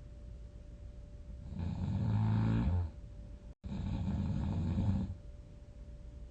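A person snoring loudly: two long snores, the first pitched and buzzing about one and a half seconds in, the second breathier, from about four to five seconds. A split-second cut to total silence falls between them.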